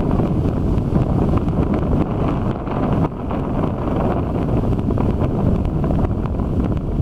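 Strong wind buffeting the microphone, with heavy surf breaking.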